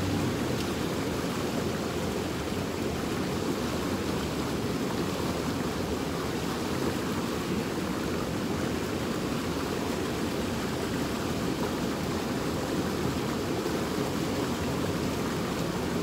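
Small creek's water running steadily: a constant rushing.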